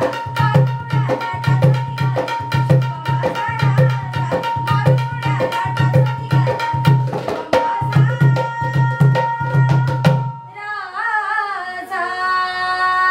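Dholki drumming in a steady rhythm of low bass strokes and sharp treble slaps, under a woman singing a Marathi song. About ten seconds in the drumming stops and her voice carries on alone in a long, wavering held line.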